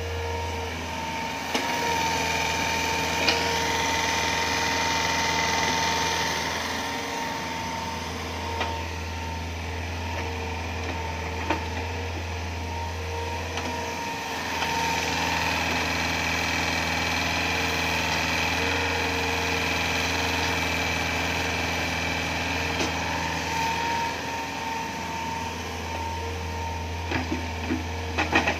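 Hitachi Zaxis 48U mini excavator's Yanmar 4TNV88 four-cylinder diesel running steadily while its hydraulics dig and swing, during a test under load after a control-valve repair. A steady drone with a thin high tone over it grows heavier in two long spells as the arm works, with a few sharp knocks.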